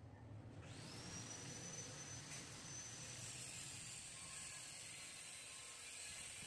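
A small motor running faintly, a steady hiss with a thin high whine that starts about half a second in and sinks slightly in pitch around three seconds in.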